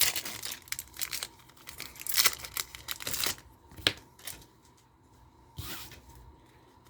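A Yu-Gi-Oh booster pack's foil wrapper being torn open and crinkled: a run of tearing and rustling over the first three seconds or so, a sharp crackle, then quieter handling with one more short rustle.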